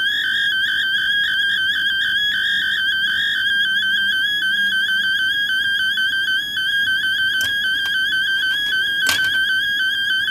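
Electronic tone from a breadboard sound-effects circuit through a small speaker, held at one high pitch with a fine, fast warble. Two sharp clicks come near the end.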